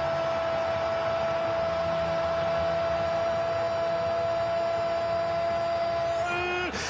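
A commentator's long, steady held "gooool" cry over the hum of a stadium crowd, celebrating a goal; near the end the held note breaks into ordinary speech.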